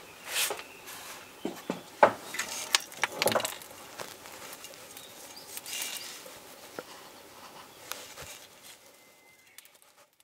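Irregular light knocks, clicks and rustling, the loudest knock about two seconds in, fading out near the end.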